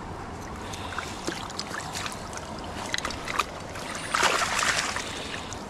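Shallow river water running over stones, with small splashes and drips around a landing net held in the water, and a louder splash lasting about a second near the four-second mark.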